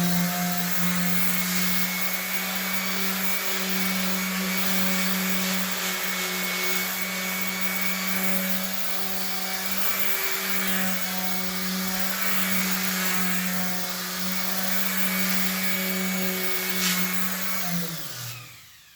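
Electric sander running steadily against the jointer's metal table, sanding off rust, with a constant motor hum under the grinding hiss. It is switched off near the end and winds down.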